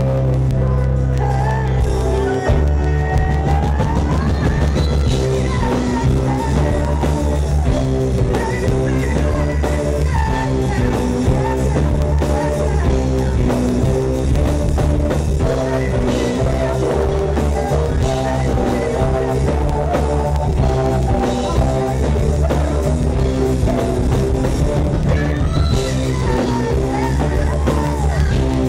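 A female singer performing live with a full band: her voice over a drum kit, electric guitar, keyboards and a heavy bass line in a steady rhythm.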